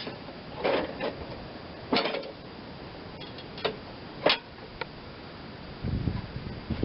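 Scattered light clanks and knocks as the drive belt and metal parts of a riding-mower deck are handled, followed by a low rumbling scrape starting about a second before the end.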